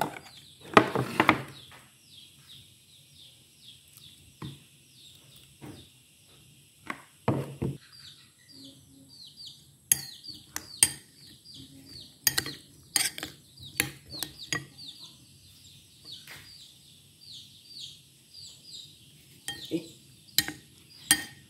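A metal spoon clinking and scraping against a ceramic bowl as tomatoes and small salted fish are stirred, in scattered sharp clicks with a few heavier knocks near the start. Rapid high chirping repeats in the background through most of it.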